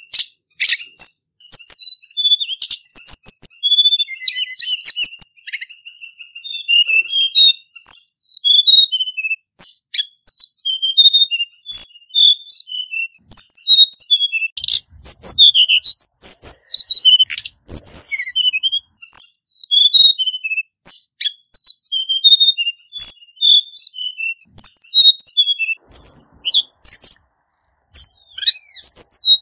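Male hill blue flycatcher singing: a fast, unbroken run of short, sweet, high notes that change pitch from note to note.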